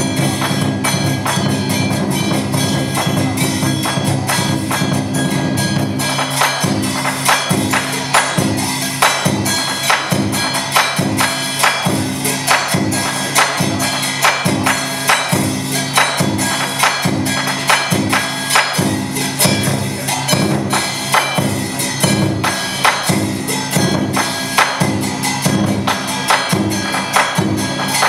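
Traditional Vietnamese orchestra accompanying water puppetry: sustained melody over percussion. About six seconds in the percussion settles into a steady, even beat.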